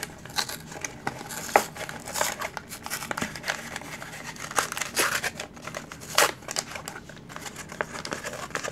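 Cardboard-and-plastic blister pack being peeled and torn open by hand: irregular crinkling and sharp crackling rustles, with louder rips about a second and a half in and again around five and six seconds.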